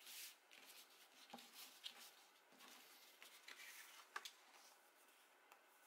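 Faint rustling of cardstock pieces being picked up and slid across a table, with a few light taps of card, about one and a half, two and four seconds in.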